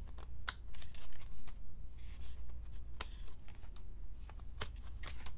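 Scattered light clicks and taps of a glossy album photobook and its pages being handled and turned, over a steady low hum.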